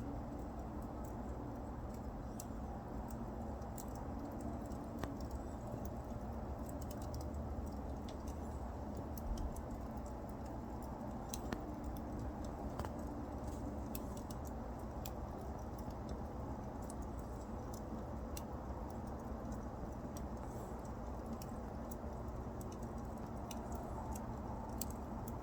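Wood fire burning, with a steady low rumble and scattered sharp crackles and pops.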